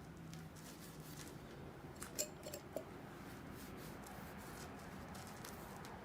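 Faint handling of a wet, soapy bicycle inner tube during a leak check, with a few small clicks and short squeaks a little over two seconds in.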